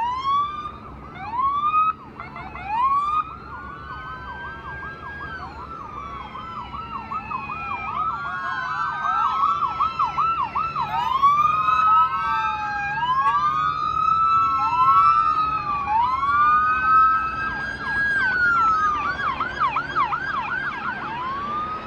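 Several emergency vehicle sirens sounding at once. Slow rising and falling wails overlap with fast yelps, growing louder over the first half and staying loud.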